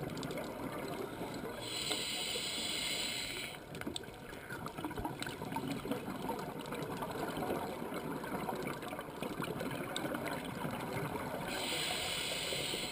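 Scuba regulator breathing underwater: a hissing inhale about two seconds in and another near the end, with bubbling and crackling of exhaled air in between.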